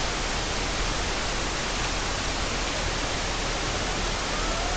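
Steady, even hiss with no distinct events, and a faint brief rising tone near the end.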